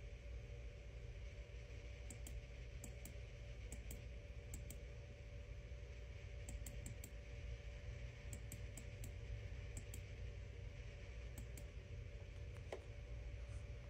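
Faint, irregular light clicks, some in quick pairs, over a low steady hum in a quiet room.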